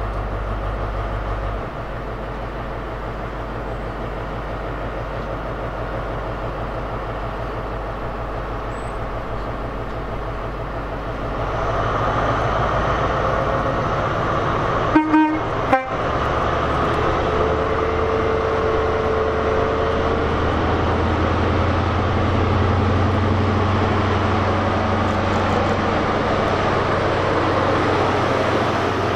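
A CrossCountry HST's Class 43 diesel power car drawing into the station, its engine drone growing louder as it nears. About halfway through, the two-tone horn gives a short double toot. After that the engine's deep drone dominates as the power car passes close by.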